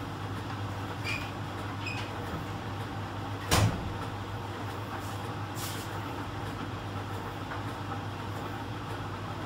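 Miele Professional PT 7186 XL tumble dryer running in its drying phase: steady hum of the drum motor and heating blower with rags tumbling in the drum. One loud thump comes about three and a half seconds in, and two faint ticks in the first two seconds.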